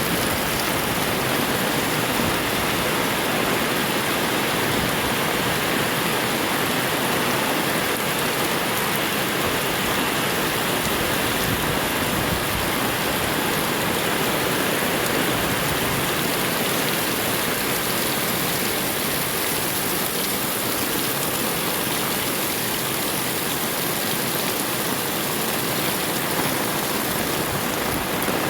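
Heavy rain falling, a steady dense hiss with no break.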